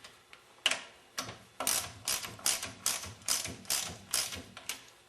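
Hand socket ratchet tightening the nuts that draw down a Meyer E-60 snow plow pump's top cap, its pawl clicking in short strokes about twice a second, starting about half a second in.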